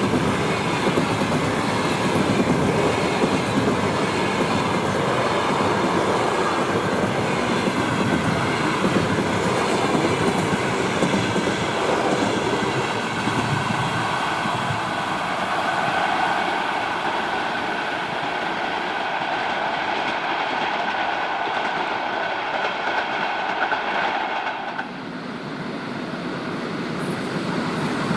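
Passenger train hauled by a Škoda-built ChS-series electric locomotive rolling through a station, its coaches' wheels running steadily over the rails with a thin high whine on top. The noise drops about 25 seconds in, then builds again near the end.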